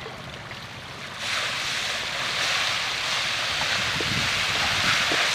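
Magur catfish fry churning the pond surface in a feeding frenzy as powdered feed is scattered over them. A steady hissing splash starts about a second in, with a few faint ticks near the end.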